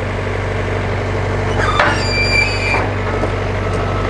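Ditch Witch 3000 stand-on skid steer's engine running steadily at idle, with a short metallic screech and clank about two seconds in as the pallet forks are released from the quick-attach plate.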